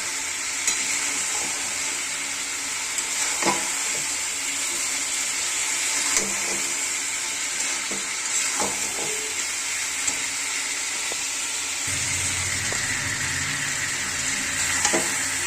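Chicken curry frying in a pan with a steady sizzle and a few short clicks. A low hum comes in about twelve seconds in.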